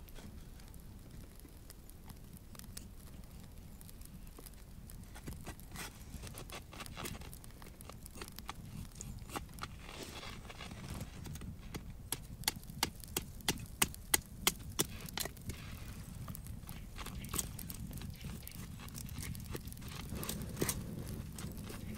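Pine firewood being split and worked into kindling with a knife: a series of sharp wooden knocks and clicks, with a quick run of the loudest knocks in the middle, over a steady low rumble.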